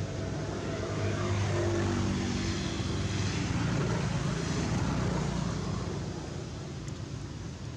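An engine's steady drone with a low hum, easing slightly near the end.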